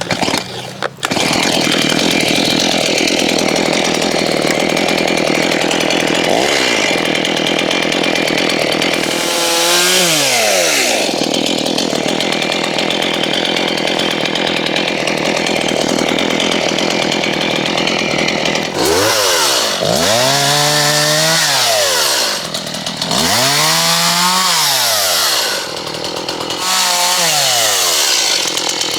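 Chainsaw running loud and steady while cutting branches, its engine pitch swinging up and down several times in the second half as the throttle is eased and opened again.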